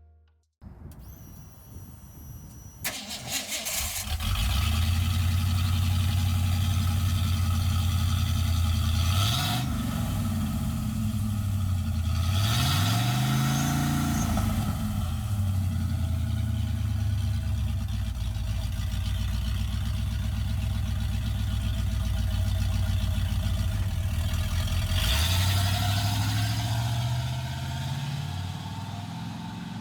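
V8 engine breathing through Black Widow Neighborhater mufflers, catching about three seconds in and then running with a deep, loud exhaust note, the revs rising and falling a few times.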